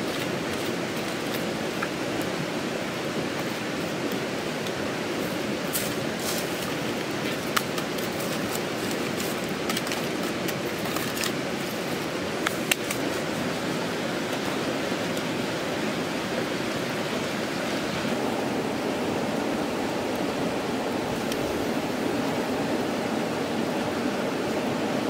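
Steady rushing noise throughout, with scattered sharp crackles and clicks through the middle stretch as sticks are pushed into the embers of a wood cooking fire.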